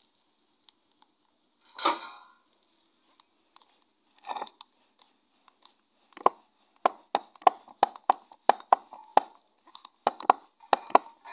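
Wooden rolling pin knocking on a wooden rolling board as pizza dough is rolled out: a few single knocks at first, then a steady run of short sharp clacks about three a second from about six seconds in.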